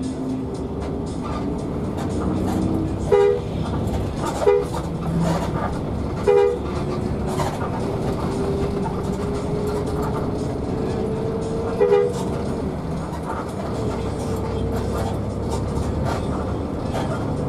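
Bus horn giving four short toots, about three, four and a half, six and a half and twelve seconds in. Under them the bus's engine runs as heard from the cabin, its pitch climbing steadily as the bus picks up speed.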